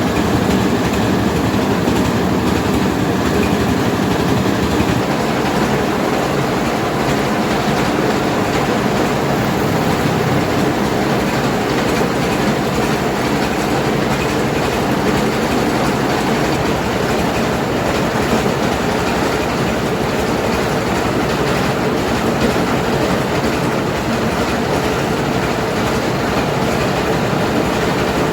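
Mobile rice milling machine running, a loud steady mechanical din with no let-up, its low hum shifting slightly about five seconds in.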